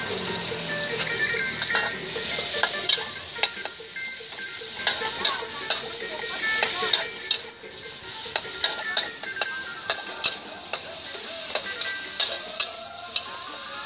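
Sliced pork sizzling in oil in a hot steel wok, stir-fried with a metal spatula that scrapes and clinks against the wok again and again.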